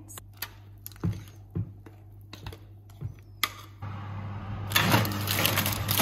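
Metal spoon tapping and scraping against a glass mixing bowl as thick brownie batter is folded, a few separate light clicks. About four seconds in, a louder steady whooshing noise with rapid small clatters takes over as the baking tin is slid into the preheated oven.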